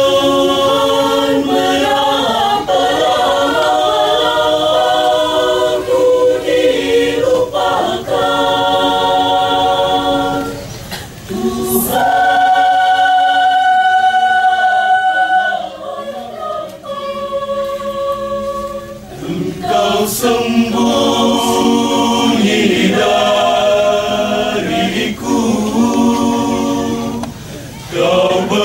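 Choir singing in several parts: sustained chords, phrase by phrase, with brief breaks between phrases about 11 and 19 seconds in.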